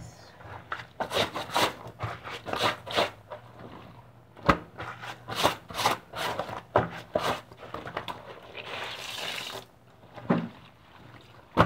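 Wet clothes being scrubbed by hand: quick, repeated rubbing strokes of cloth, about two or three a second, with a steadier hiss for about a second near the end.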